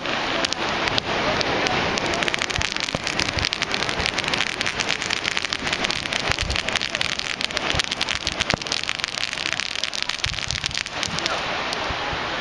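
Fireworks crackling: a dense, rapid run of small sharp pops that thins out near the end.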